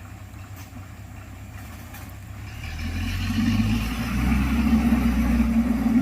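Motor grader's diesel engine running as it levels the dirt road, low and steady at first, then growing much louder about two and a half seconds in and staying loud.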